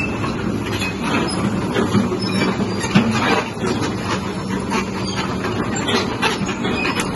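Kobelco SK200 hydraulic excavator travelling and turning on its steel crawler tracks: irregular clanking of the track shoes and undercarriage over the steady hum of its diesel engine.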